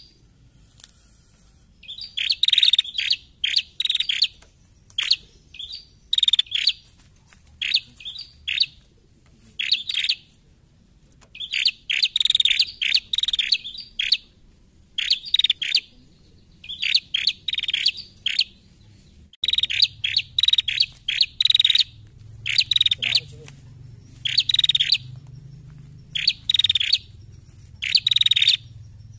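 Female prenjak, a rufous-headed tailorbird, calling from its cage: rapid clusters of sharp, high chirps, repeated every second or two with brief pauses between them.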